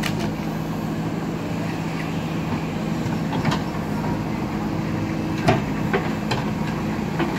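JCB backhoe loader's diesel engine running steadily, with a few sharp knocks, the loudest about five and a half seconds in.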